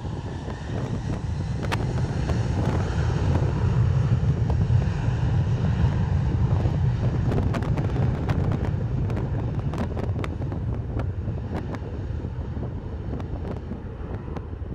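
Boeing 757 jet engines at takeoff thrust during the takeoff roll. A low, steady noise builds over the first few seconds, then slowly fades as the plane pulls away down the runway. Wind buffets the microphone, with scattered pops.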